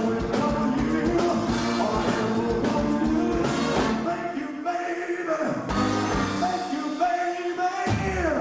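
Live rock-and-roll band with a horn section of saxophones and trumpet playing held notes over drums, with a falling run of notes near the end.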